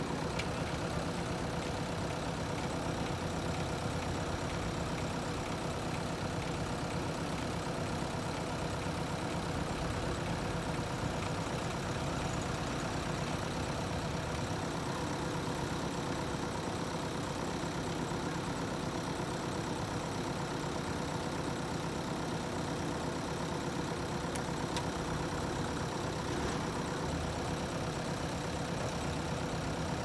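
JCB backhoe loader's diesel engine running steadily.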